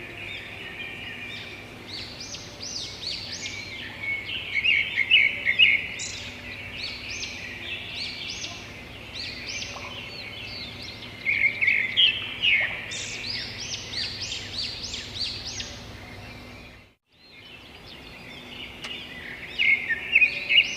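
A chorus of songbirds chirping and singing, many short overlapping chirps and trills, coming in louder bunches. The sound cuts out completely for about half a second roughly three quarters of the way through, then the chirping resumes.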